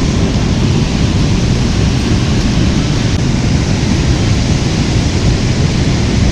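Steady rumbling wind noise on an outdoor microphone, heaviest in the low range, with no distinct sounds over it.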